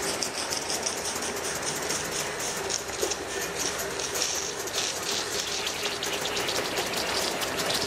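G-gauge live-steam model locomotive running, its exhaust beating in rapid, even chuffs over a steady hiss of steam, the engine spitting water from the stack.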